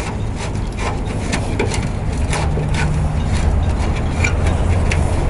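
Steel screwdriver tip scraping and clicking against old rivets on a rusty sheet-metal truck body as the rivets are pried out, in irregular ticks and scrapes. A low steady hum runs underneath.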